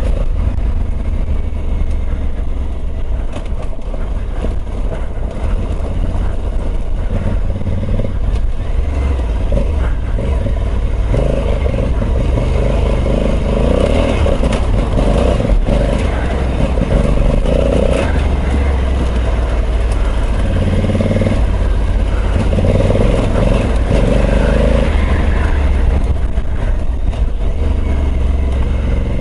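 Honda CRF1100L Africa Twin's parallel-twin engine running under load on loose gravel, revs rising and falling as the rear tyre spins. A few stones click against the bike.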